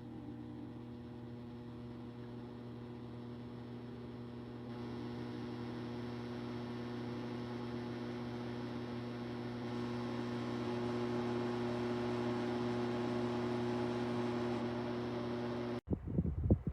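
Dreo Cruiser Pro tower fan running, a steady motor hum with several held tones under a whoosh of air, growing louder in steps about every five seconds. Near the end it cuts to air gusting onto the microphone.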